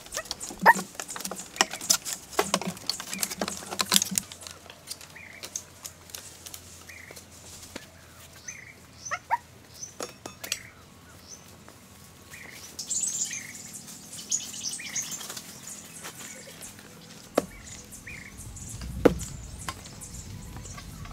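Birds chirping in short repeated calls, about one a second. A quick run of sharp knocks and taps comes in the first few seconds, with scattered single knocks later.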